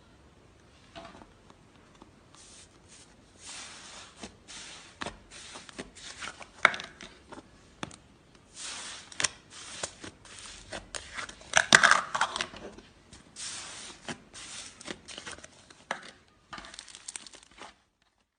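Slime being squeezed and stretched by hand: an irregular run of crackles, small pops and short tearing sounds.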